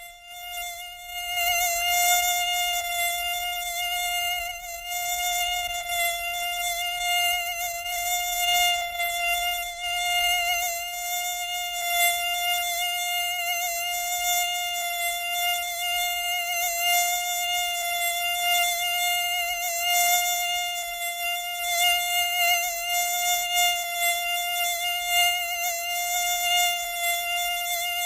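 Mosquito in flight: a steady, high-pitched whine of the wings. It swells up over the first two seconds, then holds one unchanging pitch with small wavers in loudness.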